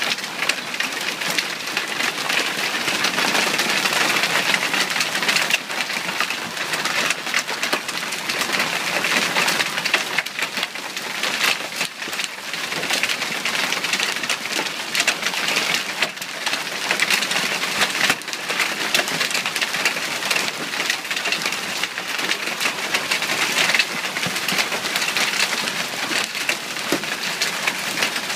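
Hailstorm: hailstones pelting down steadily, a dense clatter of countless small impacts.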